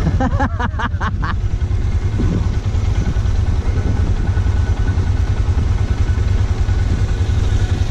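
Four-wheeler (ATV) engine running steadily with a heavy low rumble, with a brief voice over it in the first second or so.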